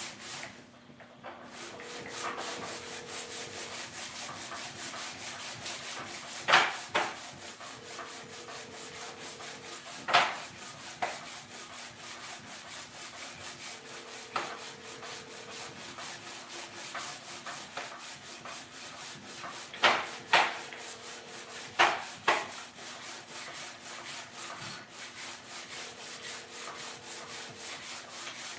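Fast, steady scrubbing strokes of hand abrasive work on a metal part, with a few sharp knocks. Over it, a phone's ringback tone on speaker rings for about two seconds every six seconds, five times: a call waiting to be answered.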